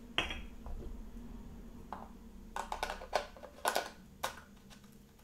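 Small clicks and taps of camera gear being handled: plastic lens caps set down on a wooden table and a Metabones speed booster being fitted to a Panasonic GH4 camera body. There is a single click at the start, another about two seconds in, and a quick run of clicks in the second half.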